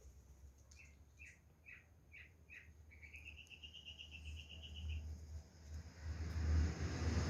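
A songbird singing: about five separate chirps, then a fast, even trill lasting about two seconds. Near the end a rush of noise with a low rumble swells up and becomes louder than the bird.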